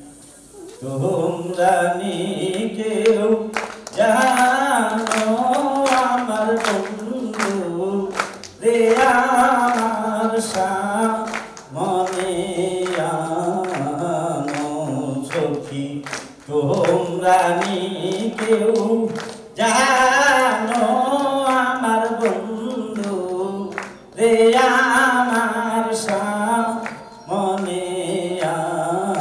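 A man singing a Bengali song into a stage microphone in long, wavering, ornamented phrases, pausing briefly for breath every few seconds, with sharp percussive knocks here and there.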